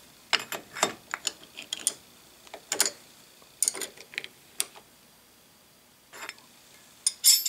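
Steel wrenches clicking and clinking against a nut on a lathe's crossfeed screw as it is tightened with two wrenches. The clicks are sharp and irregular, mostly in the first two seconds, with a quiet spell a little past the middle and a few more near the end.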